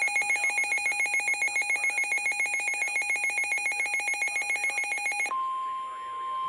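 Weather radio sounding an EAS alert for a severe thunderstorm warning: a rapid, pulsing electronic alarm beeps about ten times a second. About five seconds in it stops, and the steady single-pitch NOAA Weather Radio warning alarm tone (1050 Hz) begins.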